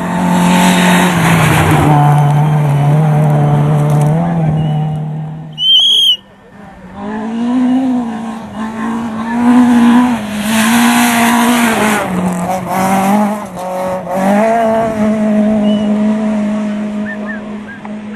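Rally cars at speed on a gravel stage. A Citroën Saxo's engine is held at high revs for the first five seconds or so, then cuts off abruptly. A Citroën C2's engine follows, its revs rising and falling repeatedly with lifts and gear changes as it comes through.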